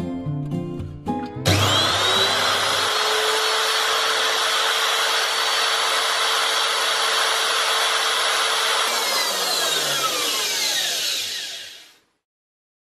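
Brushed electric motor of a handheld power tool switched on, spinning up within a second to a steady high whine, running for about seven seconds, then switched off and winding down in falling pitch to a stop.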